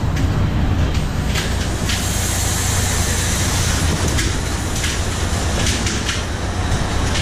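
Trawler's engine running steadily with a deep drone under the rush of wind and sea, with several sudden splashes of spray coming aboard.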